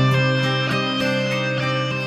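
Background music: sustained pitched notes with plucked note attacks.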